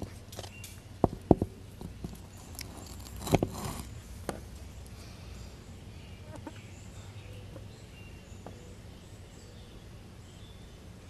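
Several sharp knocks of hard objects, a pair about a second in and a louder cluster a little over three seconds in, then a few quieter ticks, over faint high chirps.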